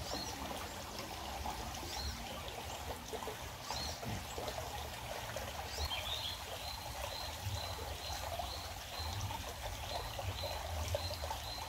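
Small stream trickling and flowing steadily over a shallow riffle. From about halfway in, a faint high-pitched call repeats about twice a second.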